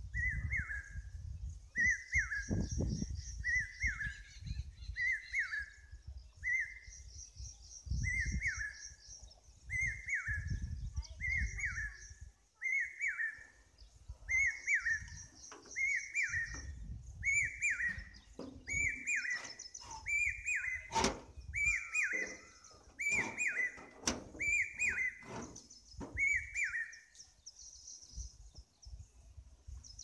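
Common hawk-cuckoo (brainfever bird) calling: the same shrill whistled note repeated about once a second, growing louder, then stopping short about 27 seconds in. A fast, high chittering runs on behind it.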